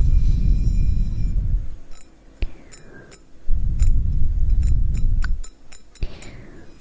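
ASMR breathing close into the microphone: two long breaths, with a series of light tapping clicks on a hard object between and over them.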